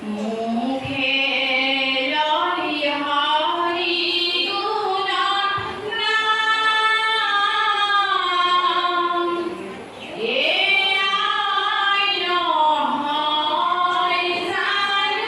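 Assamese devotional hymn (naam) sung by a group of voices together, in long phrases of held notes.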